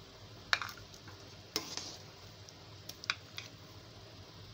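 Metal ladle scooping syrupy mango murabba out of an aluminium pot, with a few sharp clinks and scrapes of metal on the pot and the ceramic bowl; the loudest clink comes about half a second in, and several lighter ones follow.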